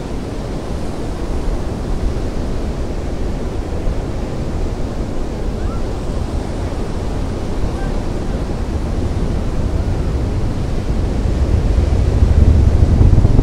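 Deep, distant rumble of a Falcon 9 rocket's nine Merlin engines climbing after launch, mixed with surf and wind on the microphone, growing steadily louder toward the end.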